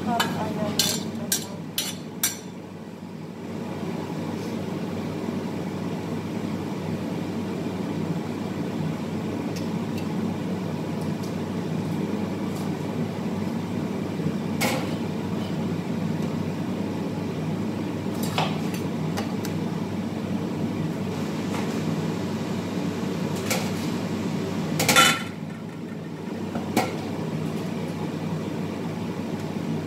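Metal cooking utensils clinking and knocking against steel pots and pans: a quick run of clinks at the start, a few single knocks later, the loudest with a short ring about 25 seconds in, over a steady low kitchen hum.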